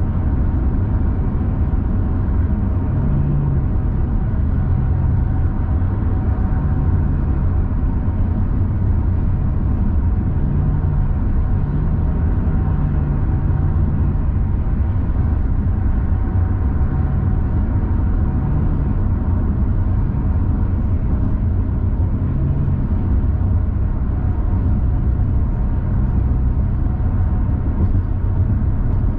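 Steady road and engine noise of a car cruising on an expressway, mostly a low rumble from the tyres and engine with a low hum that swells and fades.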